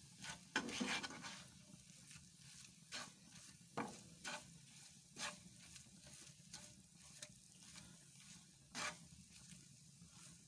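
A spatula scraping and stirring a filling of minced kefta meat, onion and herbs in a frying pan, in irregular strokes about a second or more apart, over a faint sizzle from the pan.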